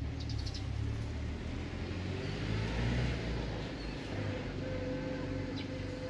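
A motor vehicle passing by: a low engine rumble with tyre noise that swells to a peak about halfway through and then eases off.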